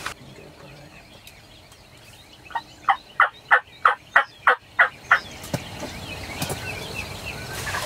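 Wild turkey yelping: a run of about nine loud, evenly spaced notes, roughly three a second, starting a couple of seconds in and stopping about two seconds later.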